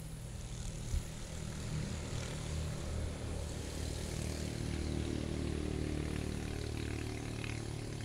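A low engine drone, growing louder over the first few seconds and then holding steady, with a single knock about a second in.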